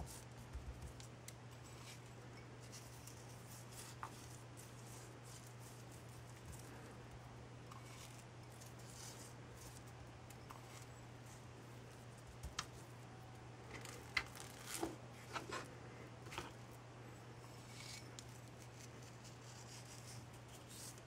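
Faint scratching and rustling of hands rubbing dried herb seasoning into raw pork tenderloin on a plastic cutting board, with a few light clicks and taps in the second half, over a steady low hum.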